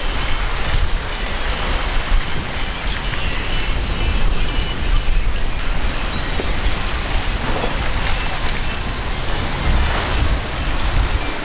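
Wind buffeting the microphone over breaking surf, with the MTI V-42's quad Mercury 450R outboards running at speed underneath as the boat passes close by.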